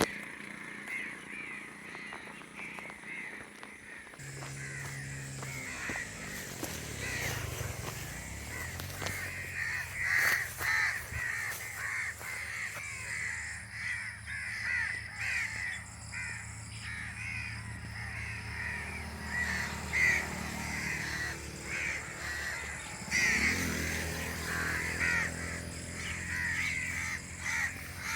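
Crows cawing over and over, many short calls overlapping. Underneath is a low droning hum that sets in about four seconds in and rises and falls in pitch twice.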